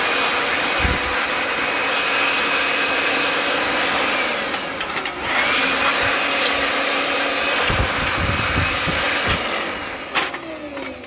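Cordless Makita-style blower running hard: a rush of air with a high motor whine. It eases off about five seconds in and spins back up, then winds down near the end.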